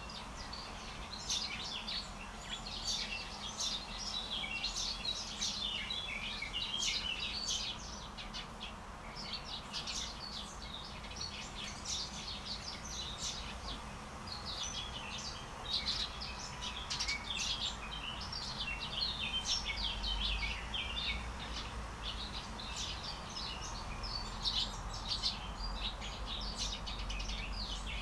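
Small songbirds chirping and singing, many short high notes overlapping with no break. A faint low rumble sits underneath.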